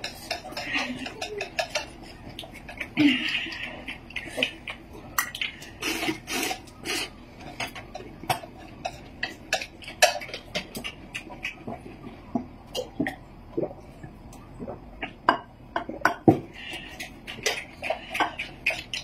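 Eating utensils clicking and knocking against bowls and dishes, in many short, irregular clinks.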